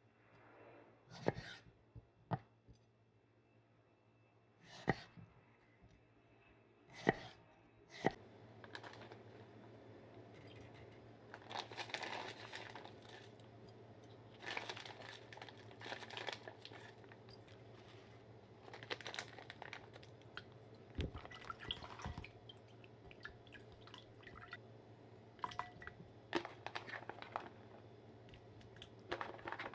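A kitchen knife slicing through white melon onto a wooden cutting board: five sharp knocks in the first eight seconds. After that, water swishing in a glass bowl as salt is stirred in for a brine, then small splashes and clinks as melon slices are dropped into the water near the end.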